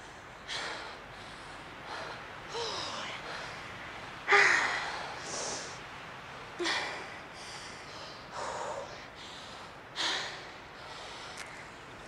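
Heavy panting after a run: hard breaths every second or two, several ending in a short voiced sound that falls in pitch, the loudest about four seconds in.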